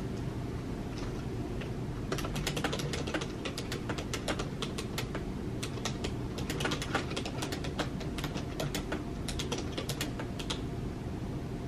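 Typing on a computer keyboard: quick runs of keystrokes starting about two seconds in, with short pauses between runs, over a steady low hum.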